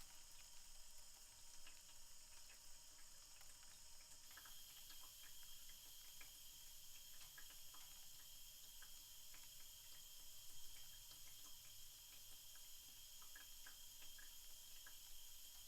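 Faint toilet cistern refilling after a flush: a steady high hiss of water running in, with scattered small drips and ticks.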